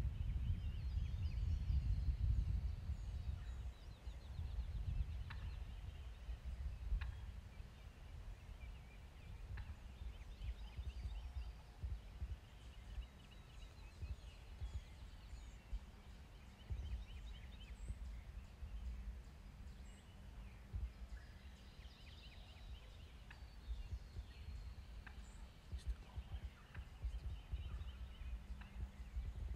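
Wild turkey gobbler gobbling now and then, with songbirds chirping, over a low, uneven rumble of wind on the microphone.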